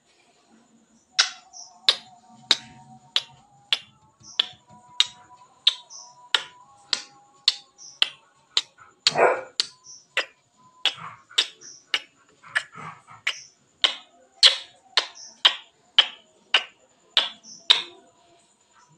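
Lips smacking in repeated kisses against a mirror: a run of sharp smacks, about one and a half a second, starting about a second in, some louder than others.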